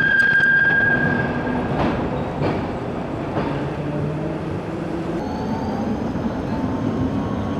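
Vintage tram's steel wheels squealing on a curve in a steady high tone that stops about two seconds in, leaving the rumble of the tram running on the rails. Near the end a steadier tram-and-street background takes over, with a faint high whine.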